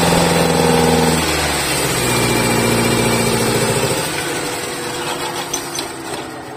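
2000 Ford Lynx car engine running with its freshly refitted fuel rail, as it is checked for fuel leaks. The revs drop about a second and a half in, and the engine sound fades over the last couple of seconds.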